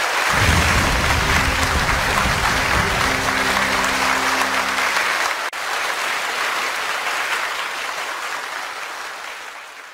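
Crowd applause, with music holding low notes under it for the first half; the clapping fades out near the end.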